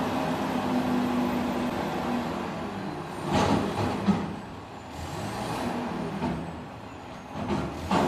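Garbage truck engine running steadily, with short hissing bursts of air about three and a half seconds in and again near the end, and a single knock in between.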